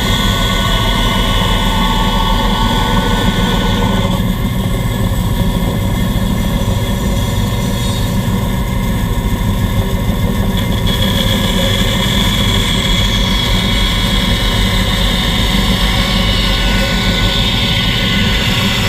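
Bandsaw running steadily with its blade cutting through wood, a constant low hum under a high whine that shifts a couple of times as the cut goes on.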